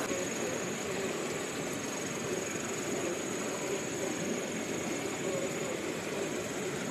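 Steady rushing water of a jungle stream, with an insect's thin, high drone held steady over it.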